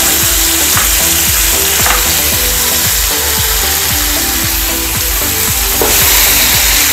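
Sliced tomatoes and browned onions sizzling in hot oil in an aluminium karahi, stirred with a wooden spatula. Just before the end, a batch of cut potatoes is tipped in. Background music with a steady beat plays underneath.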